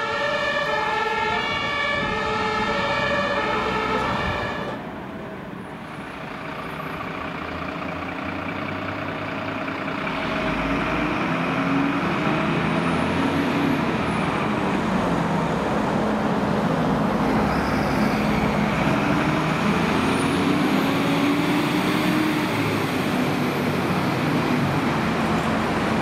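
German two-tone fire siren (Martinshorn) on a fire engine, sounding its alternating high-low notes for the first four seconds or so before cutting off. It is followed by a fire engine's diesel engine and road noise as the truck pulls away, growing louder from about ten seconds in, with the engine note rising and falling.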